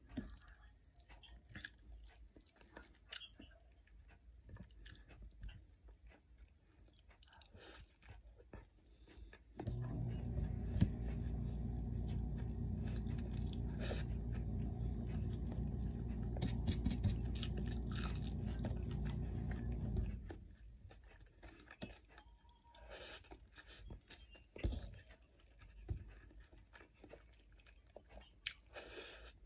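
A person chewing and smacking on hand-fed mouthfuls of biryani rice and camel meat, with small wet clicks and crunches. A steady low mechanical hum starts abruptly about ten seconds in and cuts off about ten seconds later, louder than the eating.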